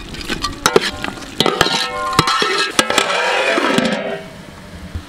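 Metal spoon stirring chicken pieces into a simmering masala in a metal pot, with repeated sharp clanks and scrapes against the pot and a light sizzle; it dies down near the end.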